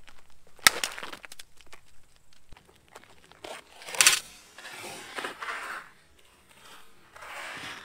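Wooden baseball bat striking a GoPro action camera with a sharp crack about four seconds in. A single sharp click comes about a second before it.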